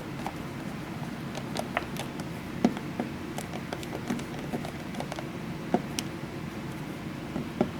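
Irregular small clicks and taps of a screwdriver and a plastic switch cover plate being fitted and screwed onto a wall switch, with a few sharper clicks, over a steady low background hum.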